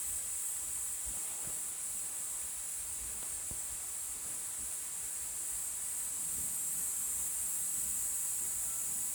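A steady high-pitched hiss throughout, with a few faint low knocks.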